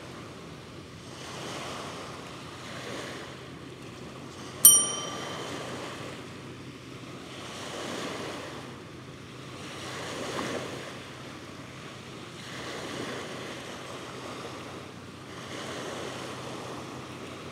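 Small waves breaking on a sandy beach, the wash swelling and ebbing every two to three seconds. About four and a half seconds in, a single bright bell-like ding rings out briefly over the surf.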